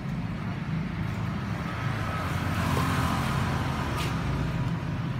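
Yamaha Exciter motorcycle's single-cylinder four-stroke engine idling steadily, with a single sharp click about four seconds in.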